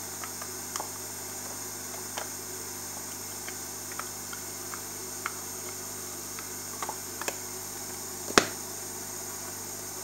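Light, scattered clicks and taps of a plastic power-supply brick case being handled and its two halves pressed together, with one sharper click about eight seconds in. A steady faint hiss and hum runs underneath.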